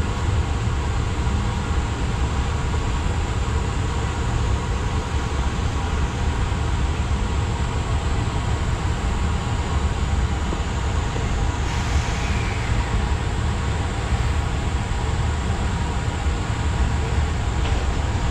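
JR Freight EF210 electric locomotive pulling a freight train away slowly: a steady hum of its cooling blowers and inverter, several steady tones over a low rumble, with the growl of its nose-suspended traction motors underneath.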